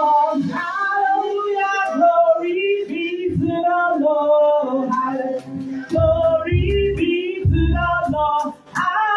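Praise-and-worship singing through the church's sound system: a lead voice sings a held, bending melody over music, with deep bass notes coming in a few times in the second half.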